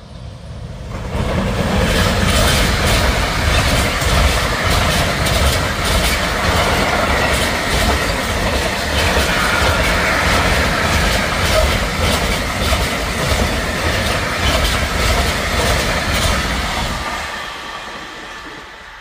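A long freight train of tank wagons rolling past close by, its wheels clattering over the rail joints in quick clicks over a heavy rumble. The sound builds over the first two seconds and fades near the end as the train draws away.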